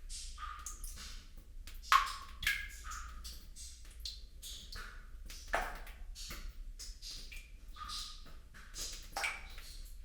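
Water dripping and plopping: irregular drops, each a short pitched plink, the loudest about two seconds in.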